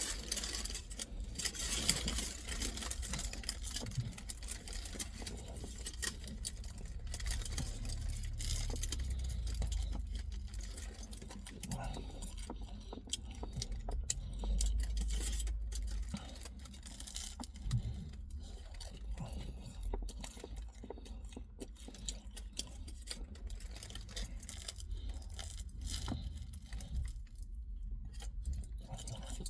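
Close-up eating and handling noises: many short clicks and rustles from food, its wrapping and plastic cutlery being handled, over a steady low rumble.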